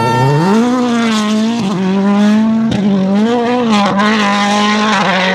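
2017 World Rally Car's 1.6-litre turbocharged four-cylinder engine under hard acceleration at high revs. The pitch climbs at the start, then swings up and down with brief cuts at gear changes about one and a half, two and a half and four seconds in.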